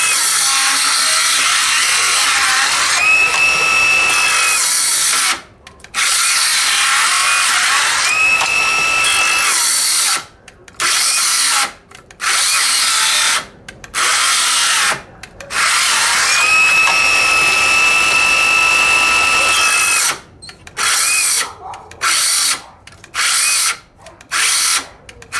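DeWalt 12V XTREME brushless 5-3/8-inch cordless circular saw running and crosscutting 2x4s, with a high whine and brief breaks between cuts. For the last few seconds it starts and stops about once a second, as the knockoff 3Ah battery cuts out while still showing two bars; the owner puts this down to the battery, perhaps overheating.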